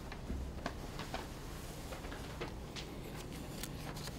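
Quiet room tone with a low hum, broken by scattered faint clicks and short rustles of people shifting and handling papers.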